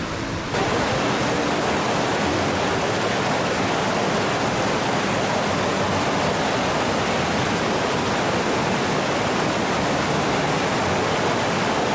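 Steady rush of a mountain river and its waterfalls. It jumps louder about half a second in, then holds even.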